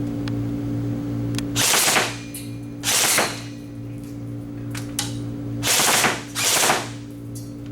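Custom G4 Dark Knight airsoft electric rifle firing four short bursts of about half a second each: two about a second apart, then a pause, then two in quick succession. A steady low hum runs between the bursts.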